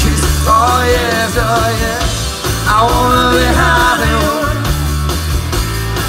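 Live rock band playing through a PA: electric guitars, bass and drums, with a melodic lead line over a steady bass part.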